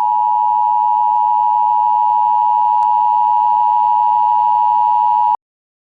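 Emergency Alert System two-tone attention signal: a steady two-pitch electronic tone held for about five seconds, then cutting off abruptly.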